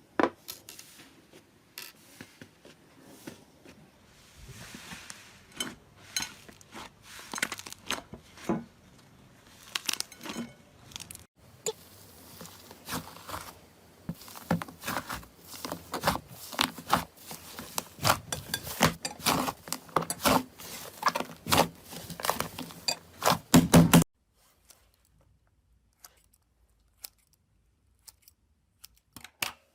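Hands squishing, poking and stretching slime: a run of irregular sticky clicks and crackles that grows denser and louder into a loud flurry, which cuts off suddenly about four-fifths of the way through. A few faint scattered clicks follow.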